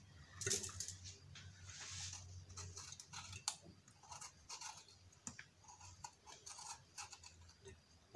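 A small knife cuts through a red bell pepper held in the hand, making faint repeated crunches and scrapes. A faint steady low hum runs underneath.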